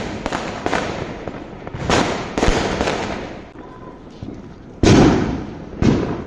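Firecrackers going off: a string of sharp bangs, about five in all, the loudest about five seconds in.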